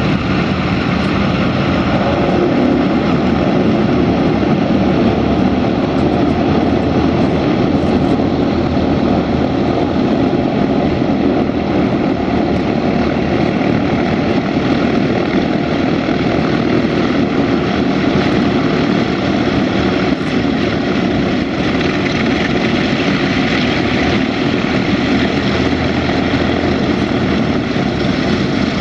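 Martin Mars flying boat's four radial piston engines running steadily, propellers turning, as it taxis on the water.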